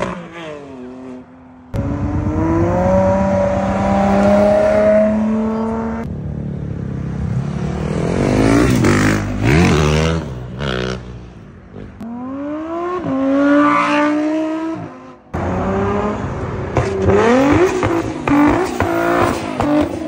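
Sports car engines revving hard as several cars pull away one after another. Each engine's pitch sweeps upward and falls back at the gear changes, with abrupt cuts from one car to the next.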